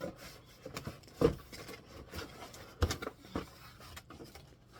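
Handling noises of a leaf-blower battery being worked loose from its packaging: scattered clicks and rustles, with two sharper knocks, one about a second in and one near three seconds.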